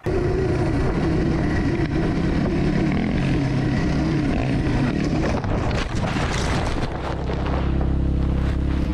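Dirt bike engine running hard under throttle, with wind buffeting on the helmet camera. A cluster of knocks and thuds comes around six seconds in as the bike goes down, and the engine then settles into a steady, even tone.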